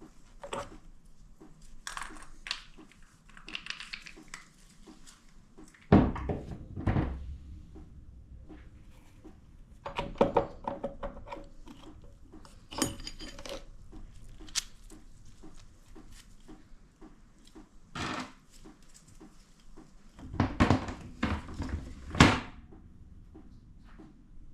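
Metal transmission parts and tools clinking and knocking as a Ford 8F35/8F40 automatic transmission is taken apart, with loud thunks about six seconds in and a cluster of them near the end.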